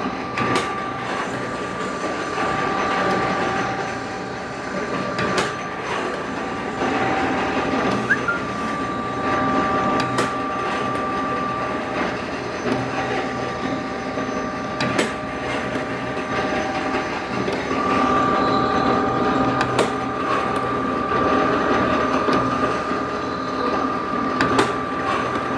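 Automatic lathe running and cutting bar stock: a steady mechanical din with a high whine that comes and goes, broken every few seconds by sharp clicks or knocks.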